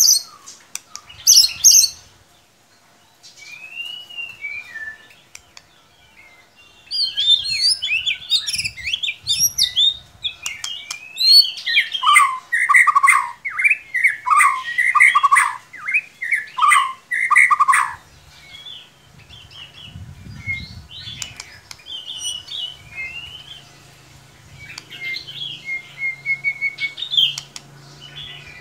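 White-rumped shama (murai batu) singing a varied song of whistled glides and quick chattering phrases. The song is densest in a long run through the middle and sparser toward the end.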